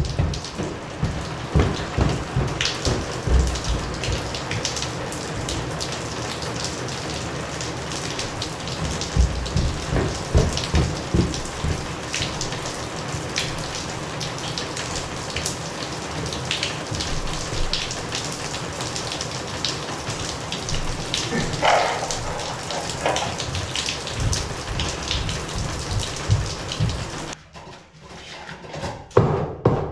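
Water spraying and splattering from a leaking joint in newly pressurised, crimped water supply plumbing: a steady hiss with scattered drips and knocks. It cuts off abruptly near the end, leaving a few knocks.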